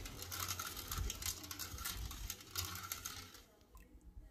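Steel ladle stirring and scraping against the bottom of a stainless steel bowl of colostrum milk, grating over sugar that has not yet dissolved. The stirring stops about three and a half seconds in, leaving a few faint clicks.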